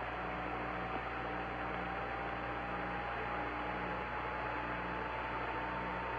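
Hiss and hum of the Apollo 11 air-to-ground radio channel, open between transmissions. A faint whistle rises slowly in pitch, over a low hum that pulses on and off.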